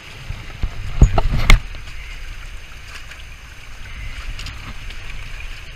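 A cluster of sharp knocks against the boat about a second in, the loudest two about half a second apart, as the netted salmon is handled, then steady wind and water noise.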